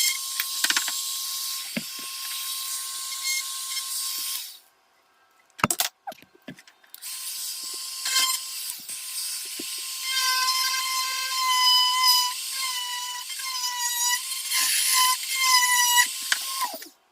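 Dremel 4300 rotary tool whining as it carves cedar, its pitch dipping and wavering as the bit bites into the wood. It stops about four and a half seconds in for a couple of seconds, with a few sharp knocks, then runs again and cuts off just before the end.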